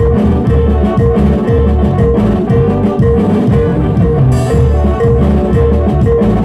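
Live band playing an instrumental passage of Latin dance music on keyboard, electric guitar, bass and drum kit, with a repeated keyboard note pulsing in a steady beat. A brief hiss like a cymbal comes about four seconds in.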